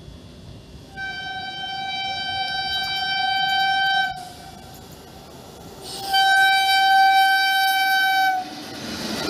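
Electric locomotive horn sounding two long single-pitched blasts, the first about three seconds long and growing louder, the second about two and a half seconds. The rumble of an approaching train builds near the end.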